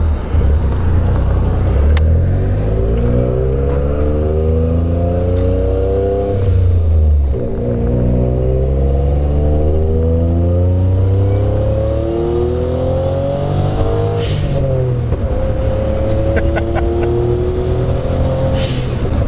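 Turbocharged engine of a big-turbo 1994 Suzuki Cappuccino accelerating through the gears, heard from inside the cabin. The engine pitch climbs, drops at gear changes about seven and fourteen seconds in, and climbs again. A short hiss from the turbo blow-off valve comes at the second shift and again near the end.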